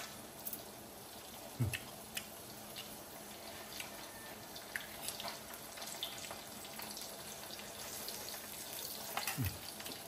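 Scattered light clicks of a metal spoon against a ceramic plate over a steady faint hiss, with two short low sounds, one early and one near the end.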